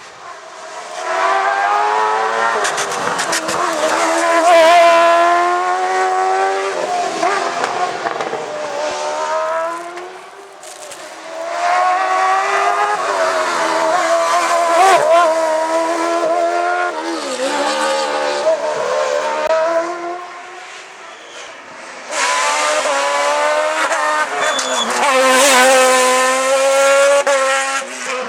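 Hillclimb race cars passing one after another at full throttle, three in turn, each engine revving up and dropping back through gear changes, with some sharp crackles during the first pass.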